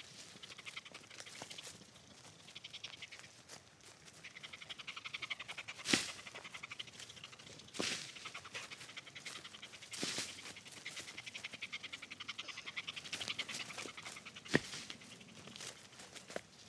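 Hokkaido dog panting rapidly in stretches close by, with a few sharp snaps and knocks of footsteps on twigs and brush.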